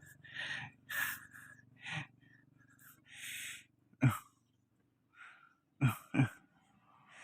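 A few separate short knocks and scraping, hissing noises of work on a vehicle, with a faint low hum that dies away in the first couple of seconds.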